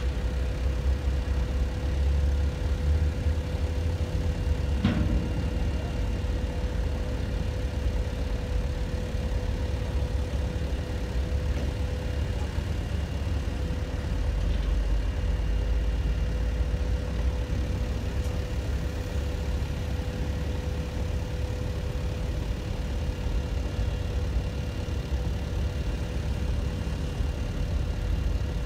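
Mobile crane's diesel engine running steadily while it lowers a load, with a steady hum throughout and one sharp knock about five seconds in.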